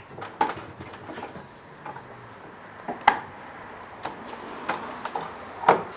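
A Hovarter quick-release face vise being worked and tightened on a wooden workbench: a string of irregular clicks and knocks, with two sharper clacks, one about three seconds in and one near the end.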